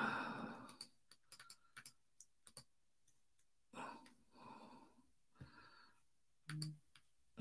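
Faint, scattered clicks of a computer keyboard and mouse while text is typed and edited, with a brief soft sound from the man's voice about six and a half seconds in.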